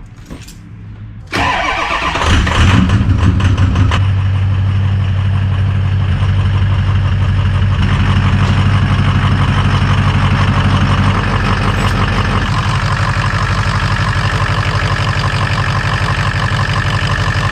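Ford F-350's 6.0-litre PowerStroke V8 turbodiesel starting: it catches about a second in, runs up for a couple of seconds, then settles into a steady idle. The exhaust manifold up-pipe leak has just had its loose bolts tightened, only one side fully.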